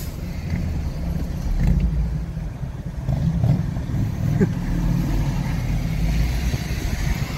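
Low, steady rumble of a car's engine and road noise heard from inside the cabin.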